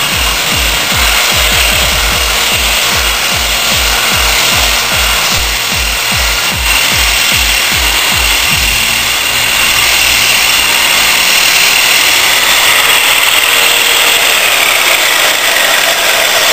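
Metabo SE 12-115 satin finisher with a wire brush drum running and brushing along the weld seam of a steel angle: a loud, steady scraping hiss over the motor's high whine. Background music with a steady beat runs underneath for the first half.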